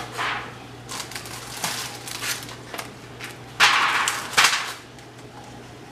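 Kitchen items handled off to the side on a countertop: a few sharp knocks and taps, then a loud crinkling rustle lasting about a second just past the middle.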